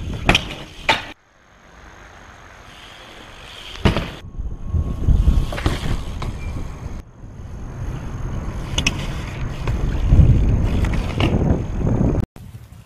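BMX bike riding on concrete and asphalt: a low rumble of rolling tyres and wind on the microphone, broken by several sharp knocks as the bike lands and strikes ledges, with abrupt changes where one clip cuts to the next.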